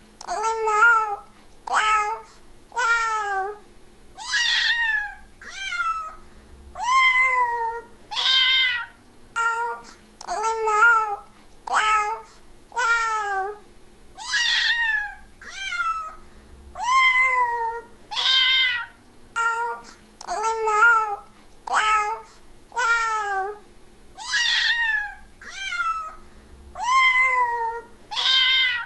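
Domestic cat meowing over and over, about one meow every second or two. Each meow is a short call that rises and then falls in pitch, some briefer than others.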